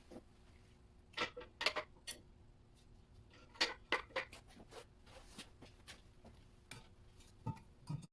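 Scattered light metallic clinks and knocks of engine parts being handled and set down, in clusters about a second in and around the middle, with a few more near the end.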